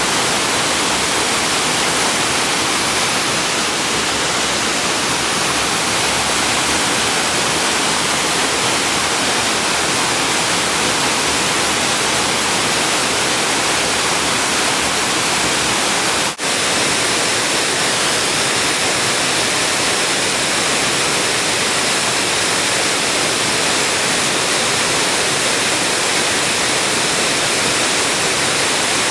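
Waterfall: a steady, loud rush of falling water, with a momentary break about halfway through.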